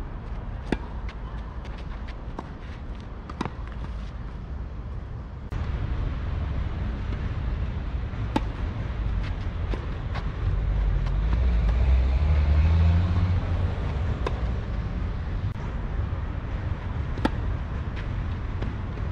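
Tennis ball struck by rackets in a rally: sharp pops every few seconds, the loudest about a second in, near the middle and near the end. Under them runs a steady low rumble that grows louder about a third of the way in and swells around the middle.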